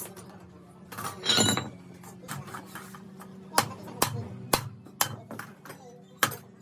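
Irregular sharp metal taps and clinks from hand tools striking metal parts, several about half a second apart, over a faint steady hum.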